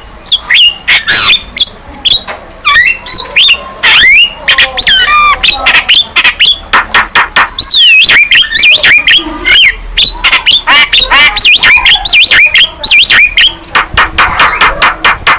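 Young Javan myna singing a long, rapid run of varied whistles, squawks and clicks, the notes quickly sweeping up and down in pitch.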